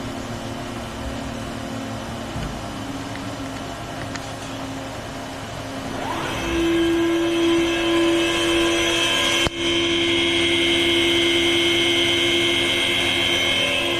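Spindle of a Hartford X-3240 double column machining centre spinning up: over a steady machine hum, a whine rises in pitch about six seconds in and settles into a louder, steady high-speed running whine, a speed run toward about 4,000 RPM.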